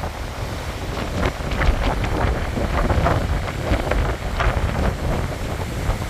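Wind buffeting the microphone over sea waves breaking and washing against a concrete tetrapod breakwater, with an uneven low rumble and irregular splashes of surf.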